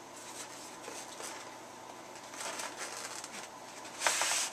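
Cardboard packaging being handled: flaps rustling and a boxed figure sliding out of a shipping box, with a brief louder sliding swish near the end.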